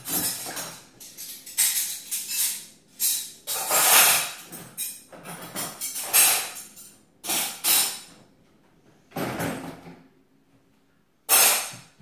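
Metal cutlery clattering and jingling in irregular bursts as it is taken from a dishwasher cutlery basket and dropped into a kitchen drawer, with a brief quiet pause before one last clatter near the end.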